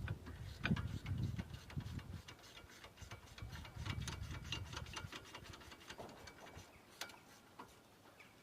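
Ratchet clicking in quick runs of sharp ticks as the 17 mm caliper carrier-to-hub bolts are wound out, fading toward the end, with a louder single click about seven seconds in.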